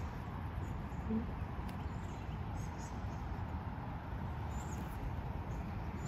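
Lakeside outdoor ambience: a steady low rumble with faint, scattered high bird chirps, and one short low call about a second in.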